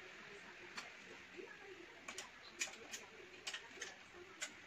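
Faint clicks and ticks of a screwdriver and small metal and plastic parts as an accessory tray is screwed onto a telescope tripod's leg braces: about eight sharp ticks, most in the second half.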